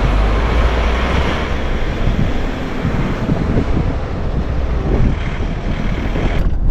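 Road noise of a moving vehicle under wind rumbling on the microphone, a dense steady rush with a heavy low rumble; the upper hiss cuts off abruptly near the end.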